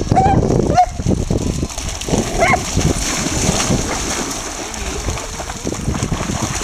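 Dogs running and splashing through shallow seawater, with a short bark at the start, another just under a second in, and one more about two and a half seconds in.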